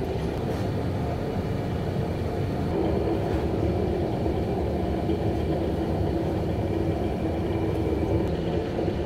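Steady low rumble of machinery, with a faint hum running through it.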